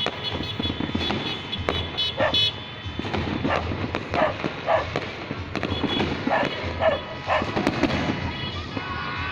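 New Year's firecrackers and fireworks going off in a dense, irregular scatter of bangs, with a dog barking several times and music playing in the background.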